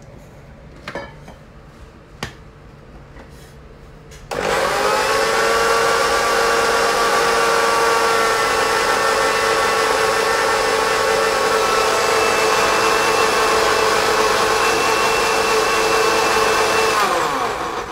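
Countertop electric blender grinding a wet masala paste of onion, green chilli, ginger, garlic and yogurt: after a couple of knocks as the jar is closed, the motor starts about four seconds in and runs steadily with a high whine. Near the end it is switched off and winds down, falling in pitch.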